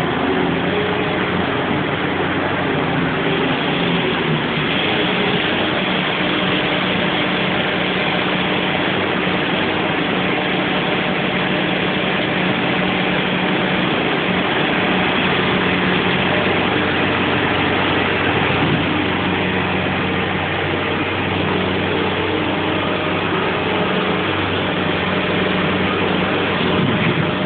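Bobcat skid-steer loader's diesel engine running steadily while the loader shovels wheat.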